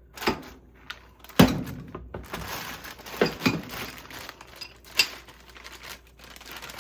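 Tools and parts being handled: a series of sharp knocks and clanks, the loudest about a second and a half in, with rustling and crinkling in between.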